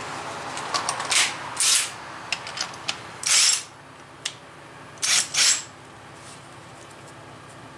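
Cordless impact wrench hammering in short bursts, each under a second, as it drives the forcing screw of a C-frame bearing press to push the wheel bearing out of the steering knuckle, with a few light clicks between bursts.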